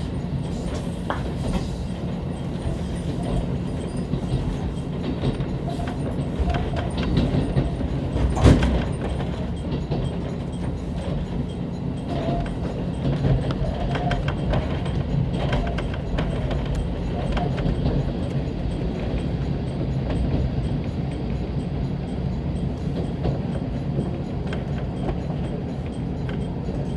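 Diesel railcar running on the rails, heard from inside the car: a steady low rumble of engine and wheels with occasional clicks, and one sharp knock about a third of the way in.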